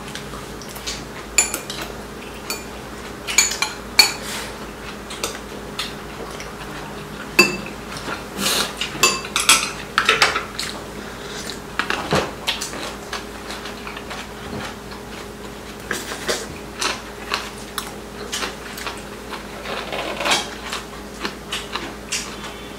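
Metal spoons and chopsticks clinking and scraping against ceramic bowls and plates in irregular clinks, with a faint steady hum underneath.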